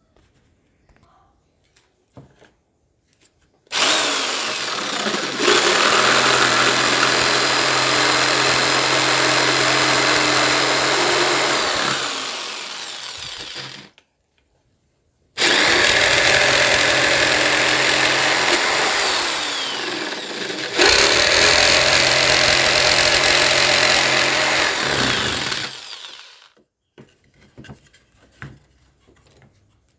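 Electric jigsaw cutting a wooden board, running in two long stretches of about ten seconds each with a short stop between. Each stretch grows quieter over its last couple of seconds before the motor cuts off, with a few light knocks and handling sounds before the first cut and after the second.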